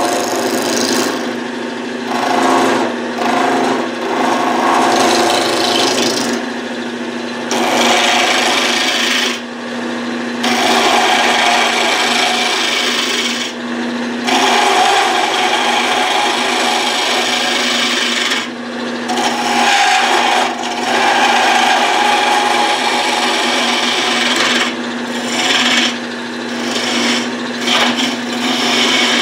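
Gouge cutting a spalted wood blank spinning on a wood lathe: a rough scraping hiss of shavings coming off in repeated passes with short breaks, over the lathe's steady hum. The blank is being rounded over to a bottle-stopper shape.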